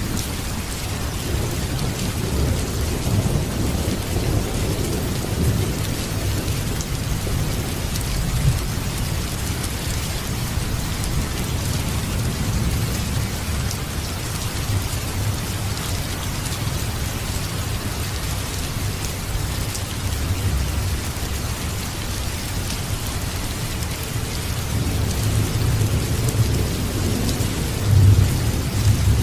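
Steady heavy rain with low rolling thunder rumbling underneath, the rumble swelling near the end. Faint scattered crackles of a wood fire sit in the mix.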